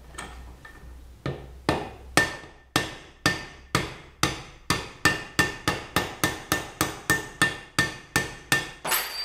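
A hammer strikes a steel rod used as a drift, tapping the rear spring guide out of a CBC B19 air rifle's compression tube. There are about twenty sharp metallic blows, each with a brief ring. They start about a second in and quicken from about two a second to about three a second.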